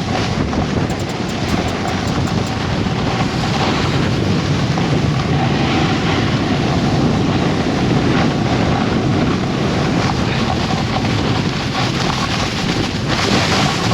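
Wind rushing hard over a helmet-camera microphone as a snowboard runs straight downhill at top speed, the board sliding over snow beneath it. The rush grows slightly louder as speed builds.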